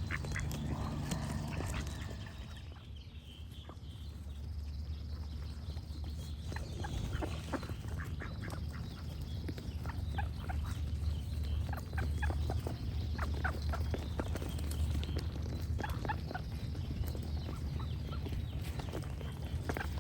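Ducks quacking, a run of short calls that gets busier after the first few seconds, with birds singing faintly in the background.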